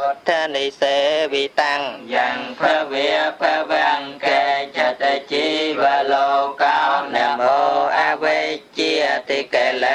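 A man chanting Theravada Buddhist scripture in a melodic, sung style, phrase after phrase with brief pauses for breath.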